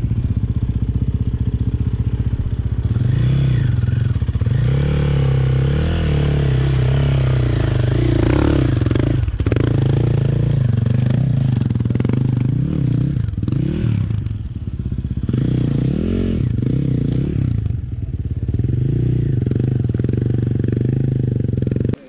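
Dirt bike engine running close by, mostly steady, with the revs rising and falling several times in the second half.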